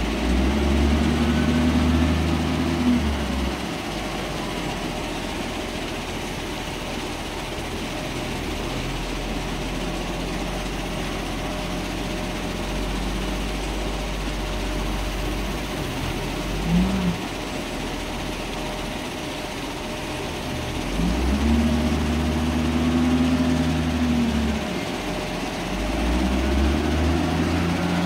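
Caterpillar wheel loader's diesel engine running, rising in pitch and level for a few seconds three times as the loader works and settling lower in between. Midway through, a bucketful of mixed sand and gravel slides from the bucket into a tipper truck's steel bed.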